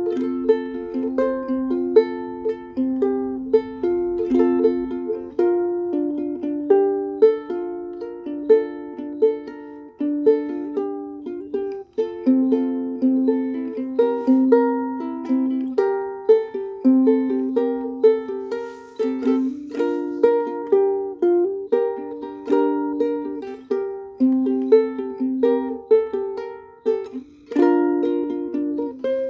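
Ukulele in high-G tuning, fingerpicked: a steady flow of single plucked notes and chords, each ringing briefly and fading.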